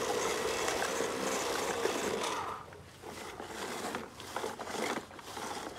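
Plastic toy bubble lawn mower pushed across grass, its wheel-driven bubble mechanism whirring and clicking. There is a steady whir for the first two seconds or so, then the sound drops and turns to scattered clicks.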